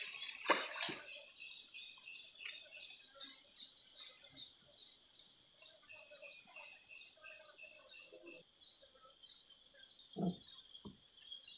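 Forest insect chorus: a steady high-pitched hiss with a pulsing call repeating about twice a second, and a few faint bird chirps. A short sharp knock about half a second in, and two soft thuds near the end.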